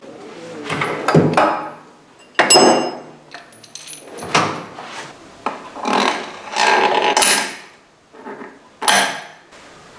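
Metal hand tools knocking and clanking against metal in irregular strikes, several of them ringing briefly.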